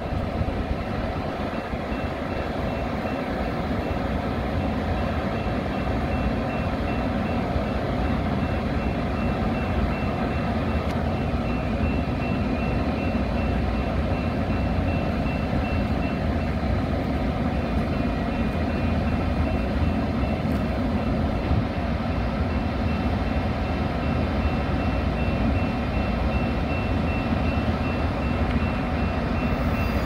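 Metra commuter train standing at the platform with its doors closed: a steady low rumble from the train's engine and equipment, with a faint steady high whine over it.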